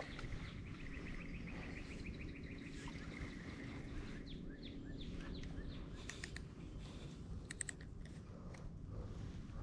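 Small birds chirping and trilling, faint, over a steady low outdoor rumble. A few short sharp clicks come around six and seven and a half seconds in.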